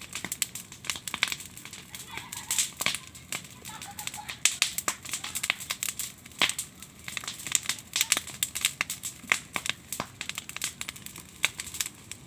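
Wood fire of branches and firewood burning, crackling with many irregular sharp pops and snaps.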